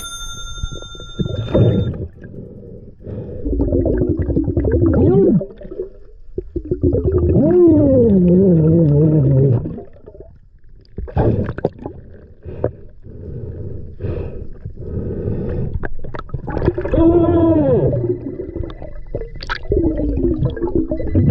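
Muffled underwater vocal sounds from a diver, long wavering tones that slide up and down in pitch, heard through the water along with gurgling. A bright ringing ding opens it.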